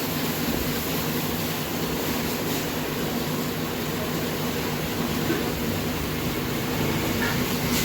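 A machine running steadily with a low, even drone.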